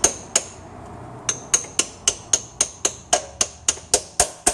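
Hammer tapping an old piston used as a seal driver, driving a new extension housing seal into the tail housing of a GM 5L40E automatic transmission: two taps, a short pause, then a steady run of about four light taps a second. About three seconds in the taps take on a deeper ring, the different sound that tells the seal has gone all the way in.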